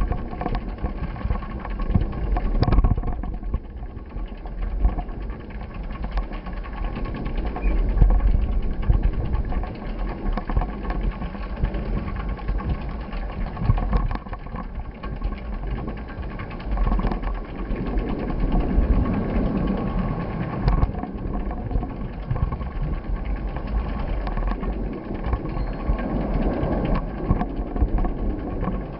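Steady running noise of a moving vehicle, with a heavy low rumble of wind on the microphone and scattered short knocks and rattles.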